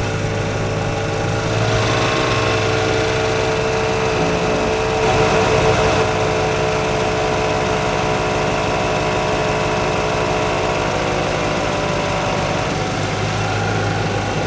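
ARB single air compressor running steadily as it inflates a large off-road tyre, a continuous mechanical hum. Some of its higher tones drop out about 13 seconds in while the low hum carries on.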